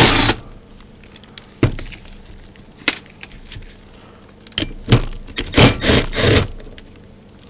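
Cordless power driver with a socket running in short bursts, undoing the main bolts that hold the motor unit in a Yaesu G-2800 rotator. A couple of sharp metal clicks come early on, and several bursts close together follow in the second half.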